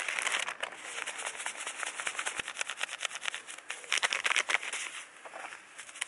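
Plastic wrappers of disposable hand-warmer packets crinkling and rustling as they are opened and handled, with a busy spell at the start and another about four seconds in.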